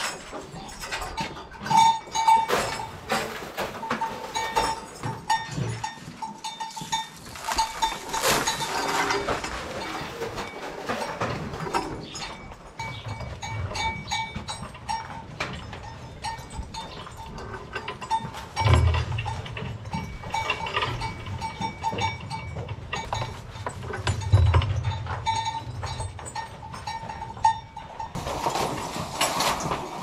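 Holstein dairy cows in a tie-stall barn at feeding time, shifting in their stalls and giving low moos, loudest twice in the second half, amid frequent knocks and metal clanks from stanchions and feeding gear.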